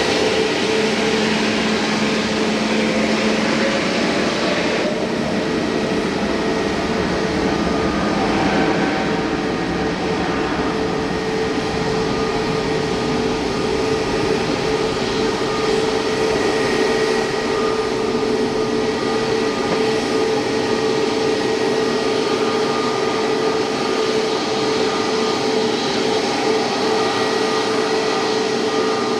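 Jet airliner's turbofan engines running, a steady noise with a high whine over it.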